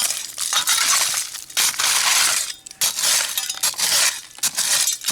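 Broken glass and old bottles clinking and crunching as dump debris is dug through, in a run of irregular scraping bursts with short pauses.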